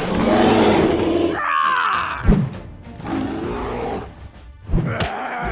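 Dubbed dinosaur roars and growls over background music, with a few thumps along the way.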